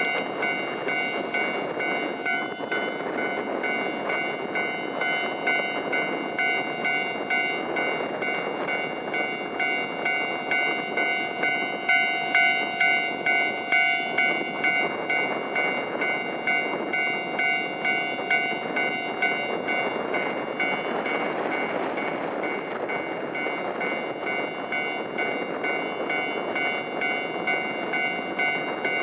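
Railway level crossing warning bell switching on and ringing over and over in an even, pulsing rhythm as a train approaches, over a steady rushing noise.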